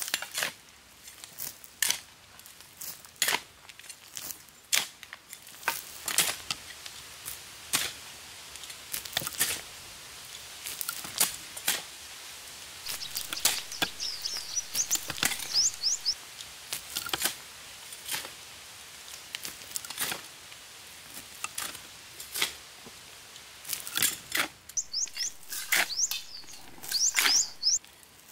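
Irregular sharp snaps and cracks, like twigs or wood being handled and broken. A bird chirps in quick runs of high notes about halfway through and again near the end.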